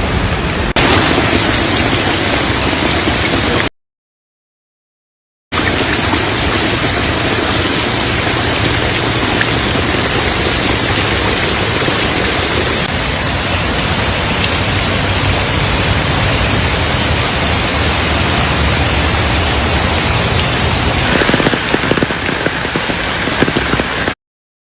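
Heavy rain pouring down, a steady loud hiss, with the sound cutting out completely for about two seconds a few seconds in.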